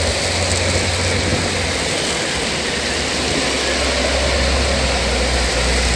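Strong wind blowing across the microphone: a steady rushing noise with heavy low buffeting.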